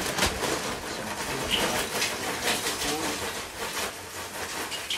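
Charcoal lumps poured from a paper bag into a metal chimney starter, clattering and rattling against the steel and each other in a dense, irregular stream of knocks.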